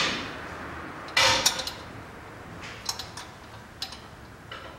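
Metal-on-metal clinks and clicks of a wrench on the engine fan's mounting nuts: one loud clack about a second in with a couple of quick follow-ups, then a few lighter clicks.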